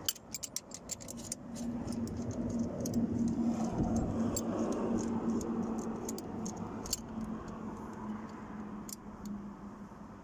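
Socket wrench on a long extension clicking as it undoes a 13 mm bolt: a quick run of ratchet clicks at the start, then slower scattered clicks. A steady low hum runs under it, loudest in the middle.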